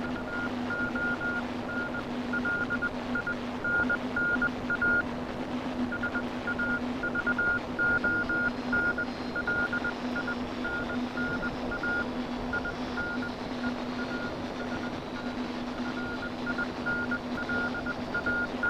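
Morse code heard through the Paraset replica's two-tube regenerative receiver: one high beat tone keyed in dots and dashes, with a few short pauses between groups, over steady band hiss and a steady low hum.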